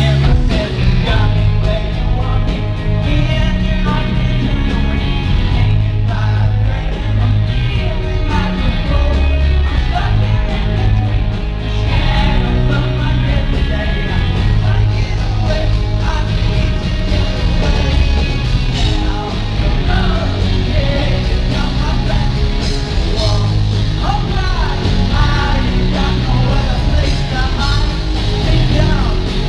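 Live rock band playing a loud, driving song: bass, drums and guitars with sung, at times shouted vocals.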